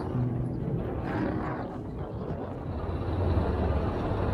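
Street traffic: a low, steady engine rumble, with a city bus's engine growing louder near the end.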